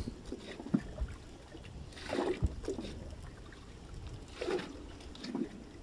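Faint sloshing and trickling of muddy trench water as it is scooped with a plastic bottle and poured into a bucket, in a few soft separate splashes.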